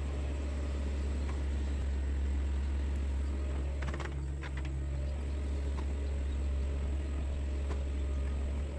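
Diesel engine of a Sunward mini excavator running steadily with a deep, even drone, with a short cluster of knocks about four seconds in.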